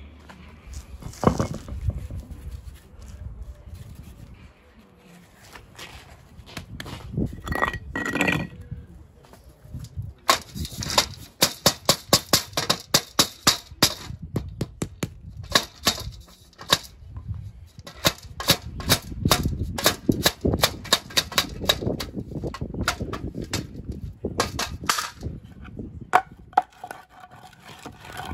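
Wooden mallet tapping a limestone paving stone down into fresh mortar to bed it level, in runs of sharp knocks, at their fastest about three a second.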